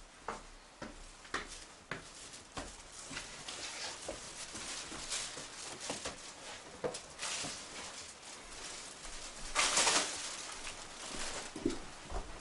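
Footsteps on a hard floor indoors, about two a second, with plastic carrier bags rustling, loudest about ten seconds in.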